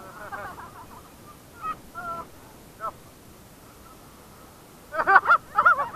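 People on and around a banana boat giving short high shouts and calls, a few scattered ones and then a quick run of louder ones near the end.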